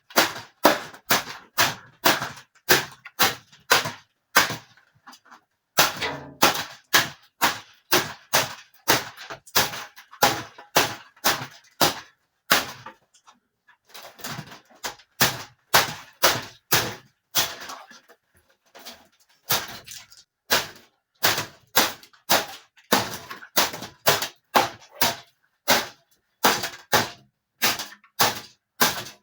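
A rusted metal box fan being smashed apart: a long run of hard blows, about two or three a second, with two short pauses, about five seconds and thirteen seconds in.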